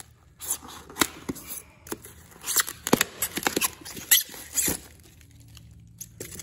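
Screwdriver prying a hole-saw-cut plug out of rigid foam board: a quick run of sharp squeaks, scrapes and crackles of foam tearing that stops about five seconds in.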